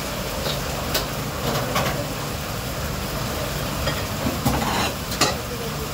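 Restaurant kitchen noise: a steady hum with scattered clinks and clatter of dishes and utensils.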